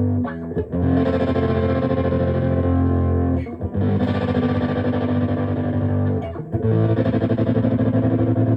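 Electric guitar played through a homemade overdrive pedal built from a broken cassette player: distorted chords, each held about two and a half seconds, with short breaks between them.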